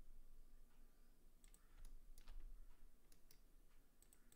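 Faint, scattered clicks of a computer keyboard and mouse, about half a dozen sharp ticks over a few seconds against near silence.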